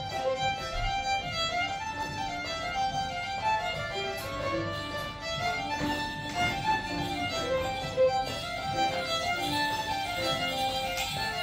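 Fiddles playing a folk tune, a quick even stream of notes without a break.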